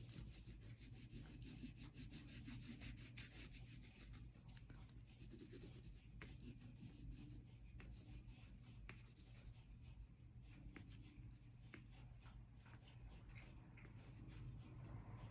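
Faint, quick scratchy strokes of a Pentel oil pastel being rubbed onto paper, over a steady low hum.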